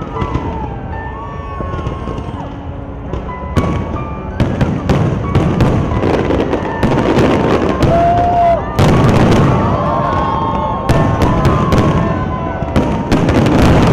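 Aerial fireworks display bursting in quick succession: many sharp bangs and crackles, growing denser after about four seconds, with some whistling or voice-like tones over them.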